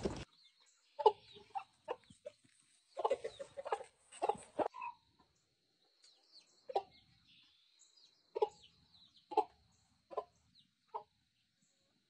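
A flock of backyard hens clucking in short, scattered calls: a quick run of several clucks about three to four seconds in, then single clucks every second or so.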